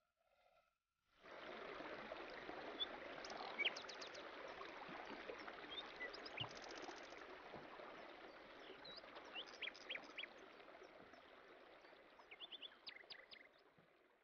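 Faint nature ambience: a steady rush of running stream water with bird chirps scattered over it. It starts abruptly about a second in and slowly fades toward the end.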